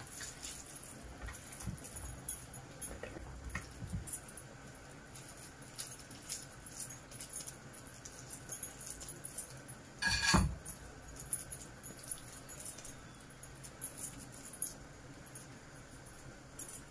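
Hands squeezing and patting raw minced-meat mixture into balls: faint wet squishing and light clicks, with one louder knock about ten seconds in.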